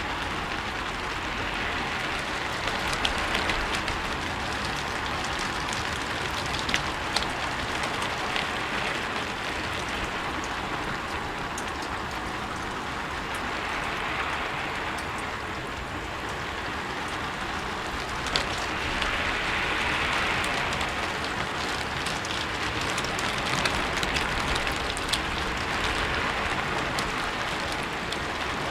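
Steady rain falling on a rooftop, a dense even patter that swells and eases every few seconds, with scattered sharper drips and ticks.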